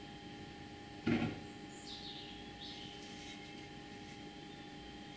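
A single knock about a second in as a metal drill press part is set down on a wooden workbench, over a faint steady hum and hiss. Two faint high chirps follow a second or so later.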